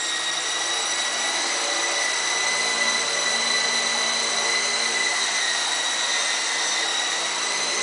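Venom Beacon micro electric RC helicopter in flight: the steady high-pitched whine of its motor and rotor, holding a nearly constant pitch.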